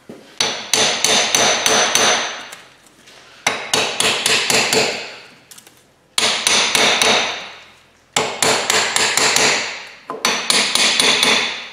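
Hand-hammer blows on steel, in five quick flurries of several strikes each with ringing after every flurry, knocking a rust-stuck inner bearing race (inner cup) loose from a front wheel hub.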